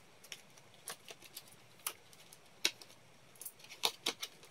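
Coins being handled, clicking lightly against each other and the table: scattered single clicks, with a few in quick succession near the end.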